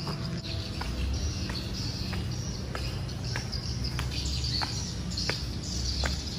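Footsteps on a tiled floor, a light tap about every two-thirds of a second, over a steady high chirring of insects with some bird chirps.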